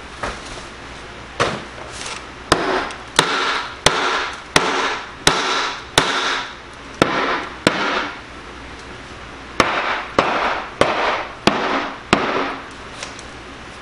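A hammer pounding a plywood (OSB) sheathing panel in a wall opening to knock it loose: about fourteen sharp blows, each with a short rattling tail, roughly two a second, in two runs with a pause about eight seconds in.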